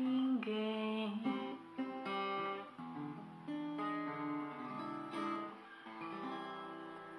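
Acoustic guitar playing the closing phrase of a bossa nova song alone, a run of plucked chords and single notes that gradually grows quieter.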